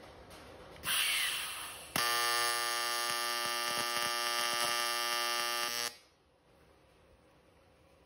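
AC square-wave TIG welding arc on aluminium: a hissing start about a second in, then a steady loud buzz for about four seconds that cuts off suddenly as the arc is stopped.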